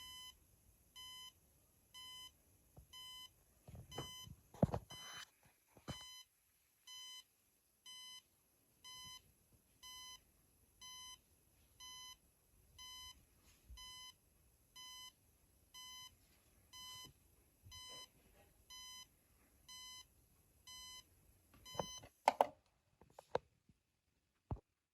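Emerson WBS12's electronic alarm: a short beep at one steady pitch, repeating a little more than once a second, then stopping near the end. A few knocks around four to six seconds in and a cluster of louder clicks and knocks as the beeping stops are the loudest sounds.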